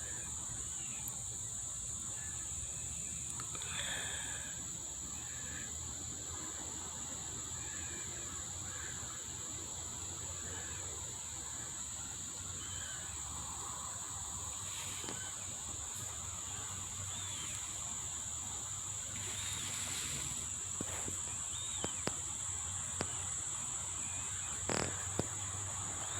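Insects droning in a steady high chorus, with faint scattered bird chirps and a few soft clicks.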